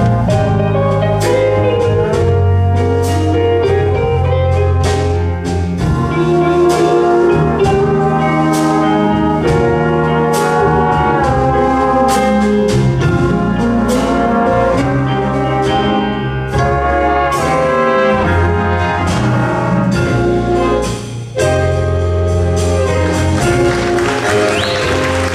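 Student big jazz band playing live: trumpets, trombones and saxophones sounding held chords together over a steady beat of drum and cymbal hits.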